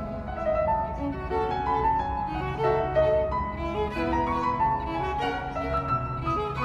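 Background instrumental music: a violin melody of short stepping notes over held lower string notes.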